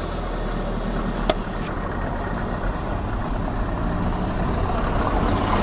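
Motor vehicle engine running steadily, getting slightly louder as it pulls away, with a single light click about a second in.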